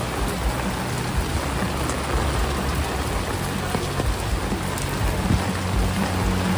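Heavy rain falling steadily, a dense even hiss of drops, with a low steady hum underneath.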